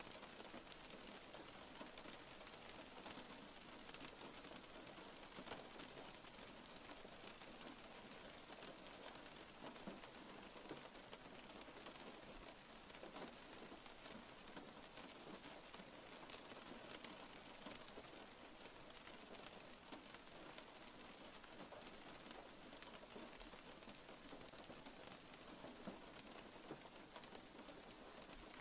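Faint, steady rainfall: an even hiss of rain with many small, scattered drop ticks.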